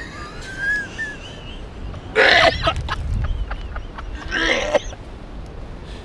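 Two loud, harsh vocal outbursts about two seconds apart, over low wind rumble: a man reacting to a Bean Boozled jelly bean that may be the vomit flavour.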